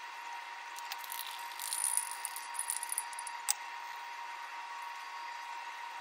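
Spatula scraping and clicking against a nonstick skillet while scooping out mashed potatoes, a scatter of short scrapes ending in one sharp tap about three and a half seconds in, over a steady faint hiss.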